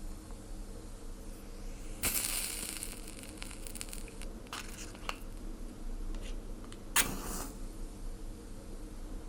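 Sharp, scattered crackles and a hiss about a second long, starting about two seconds in, over a faint steady hum: a fire being put out with water.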